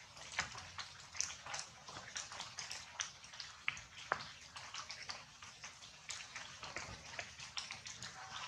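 Raindrops pattering irregularly on leaves and the ground: scattered light taps, several a second, over a soft hiss.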